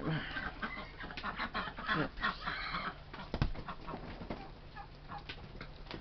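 Chickens clucking: a flurry of short calls over the first half, thinning out toward the end, with a single sharp knock a little past halfway.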